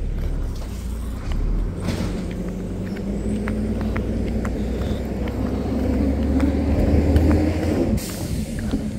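Garbage truck's diesel engine running and climbing slowly in pitch for several seconds, then a short hiss of air brakes near the end.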